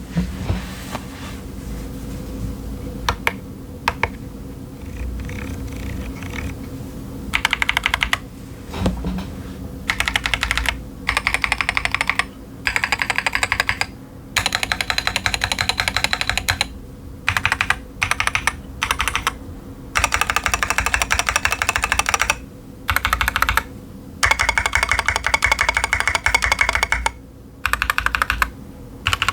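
Typing on a Keychron Q10 mechanical keyboard with TTC Chaotic Panda switches and SA-profile doubleshot ABS keycaps. It starts with a few scattered keystrokes, then about seven seconds in goes into fast runs of typing broken by short pauses.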